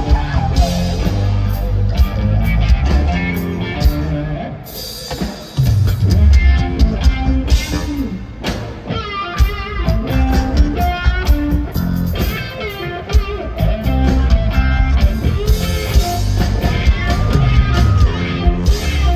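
Live rock band playing a funk jam: electric bass, electric guitar and drum kit. The band drops back briefly about four seconds in, then the full groove comes back in hard about six seconds in.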